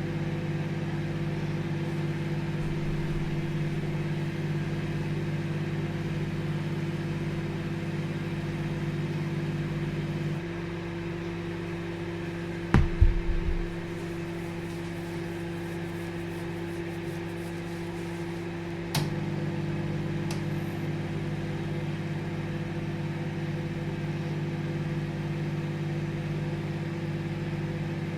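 Microwave oven running with a steady hum. About ten seconds in, the deeper part of the hum drops out, and it comes back with a click about nineteen seconds in, as the magnetron cycles off and on. A single loud knock comes about thirteen seconds in.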